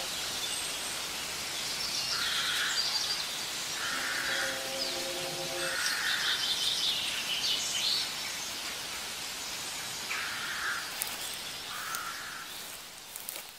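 Forest ambience: birds chirping over a steady hiss, with a brief held low tone about four seconds in, fading out near the end.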